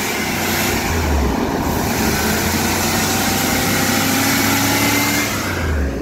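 1977 Corvette's 350 small-block V8 running steadily after a flooded, hard cold start, now that the cause of the no-start has been found.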